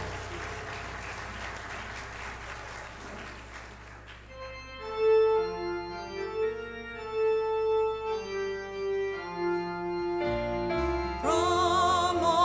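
An organ plays a slow passage of held chords after a few seconds of steady hiss, and voices begin singing with it near the end.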